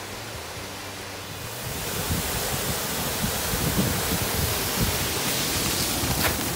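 Rushing water of a waterfall and creek, a steady hiss that swells louder about two seconds in, with low gusts of wind on the microphone.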